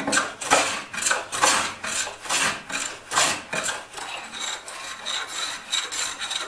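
Japanese pull plane (kanna) shaving the edge of a walnut board: a run of quick rasping strokes, about two a second, that turn softer and run together after about four seconds.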